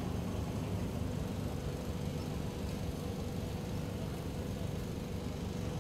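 Steady low rumbling background noise with no distinct events, joined by a faint steady hum from about two seconds in.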